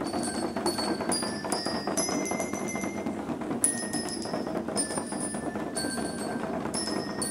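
Procession marching band playing: bell lyres ring out a melody in bright metallic notes, about two a second, over a steady low din of the band.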